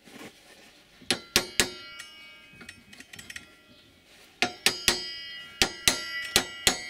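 New steel circular saw blade being struck, each sharp hit left ringing on like a bell: three hits about a second in, then a run of about seven more near the end.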